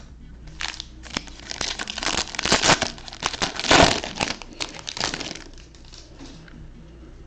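Crinkling and crackling of a plastic trading-card pack wrapper being handled and opened by hand, a dense run of small crackles that is loudest about four seconds in and dies down after about five seconds.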